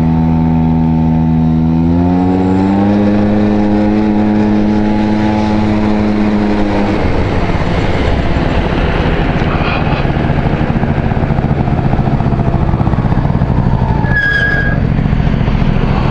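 Honda Dio 27 scooter's small two-stroke engine pulling under throttle, its note rising over the first few seconds and then holding steady. About seven seconds in the engine note drops away, leaving steady road and wind noise, with a brief high squeak near the end.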